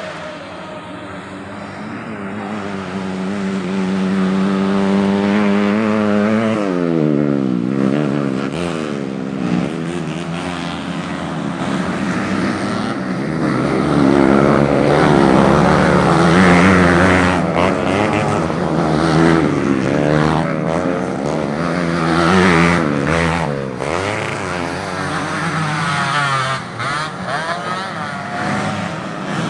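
Several modified underbone racing motorcycles running hard, their engine notes rising and falling as they rev, shift and pass by. Several engine pitches overlap, and the sound swells and fades.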